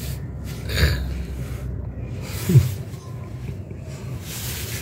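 Kitten hissing and spitting in three short, sudden bursts at a reaching hand, a defensive warning from a frightened kitten.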